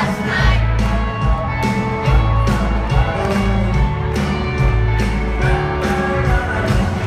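Live country band music with a steady beat.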